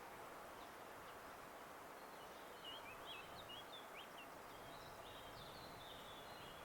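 Faint bird song: a run of short chirps starting about two and a half seconds in, over a low steady background hiss.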